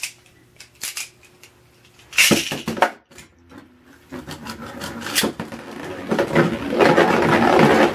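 Beyblade spinning tops launched into a plastic stadium with ripcord launchers: scattered clicks, then a sudden loud zip and clatter about two seconds in. The tops then spin and rattle on the plastic floor and against each other, the clatter growing louder toward the end.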